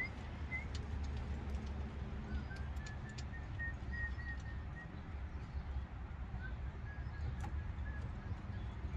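Faint bird chirps, short and high, scattered over a steady low rumble, with a few faint clicks.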